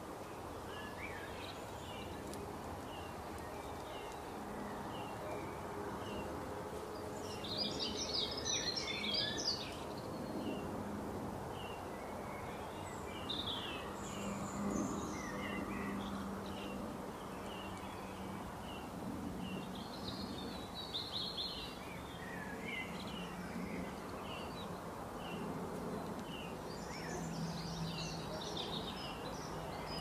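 Wild birds calling and singing outdoors: a short chirp repeated again and again, with several louder bursts of high twittering song, over a steady background of outdoor noise and a faint low hum.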